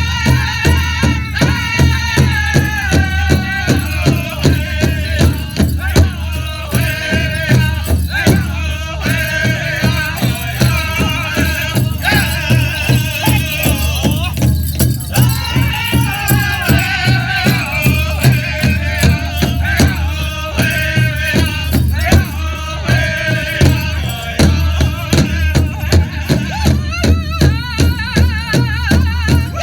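Pow wow drum group singing in high, wavering voices over a steady beat on a large shared drum.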